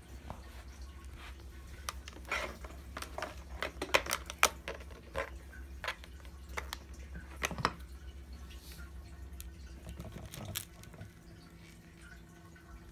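Sharp plastic clicks and knocks from a Bissell PowerForce upright vacuum's dirt cup being handled and unlatched, clustered in the middle and loudest about four seconds in, over a low steady hum.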